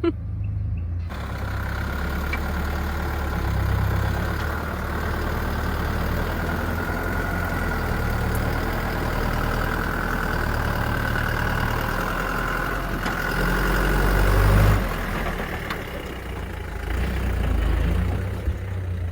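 Mitsubishi Canter 4x4 truck's engine running under load as it drives a rough track, the revs rising and easing, loudest about fourteen seconds in.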